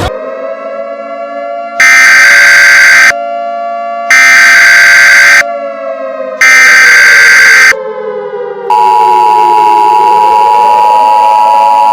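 Emergency Alert System SAME header: three loud, harsh digital data bursts about a second apart. About nine seconds in they give way to the steady, loud two-tone EAS attention signal. Under it all a wailing siren slowly falls and rises in pitch.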